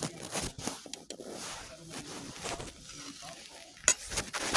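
Rustling and handling noise right at a phone's microphone as a hand and clothing brush against it, with a sharp click about four seconds in and a louder rustle near the end.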